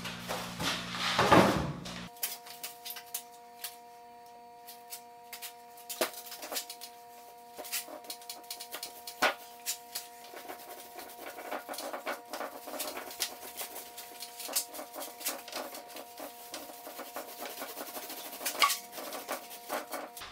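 Small paint roller spreading glue over a panel: a long run of short, tacky clicks and ticks.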